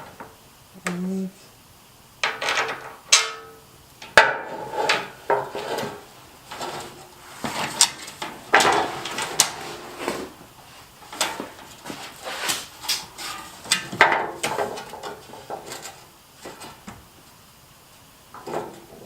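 Irregular knocks, clicks and clatter of hard parts and tools being handled and bumped together while a front splitter is offered up to a car bumper to line up its mounting holes.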